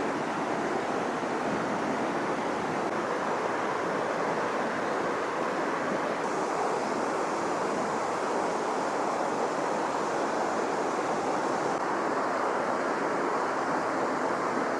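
Steady rush of a swollen mountain river's current, an even, unbroken water noise.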